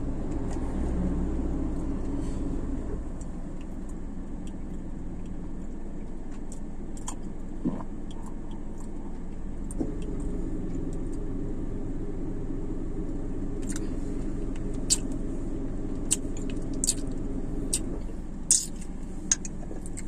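Steady low hum inside a parked car's cabin, from the engine idling and the air conditioning. Scattered small clicks and taps come from handling and drinking from a small bottle, most of them in the second half.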